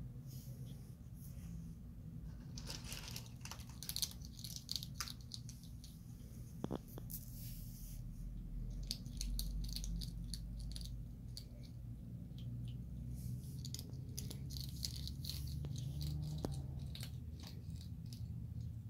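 Striped skunks crunching and chewing small pellets of dry food off a concrete patio: irregular runs of small crisp crunches and clicks over a low steady rumble.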